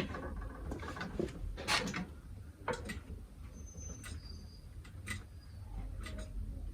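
Scattered light clicks and knocks, roughly one a second, as the industrial sewing machine's belt and pulley are handled and turned to check that they run free.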